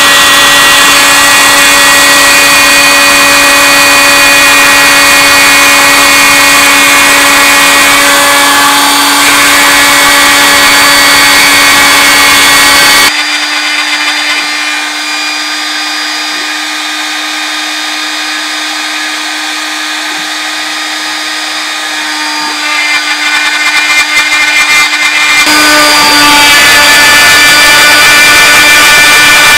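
Router spindle of a hobby CNC machine running at a steady pitch, its quarter-inch flat bit cutting slots into pine. It drops quieter and thinner for about twelve seconds in the middle, then comes back at full level.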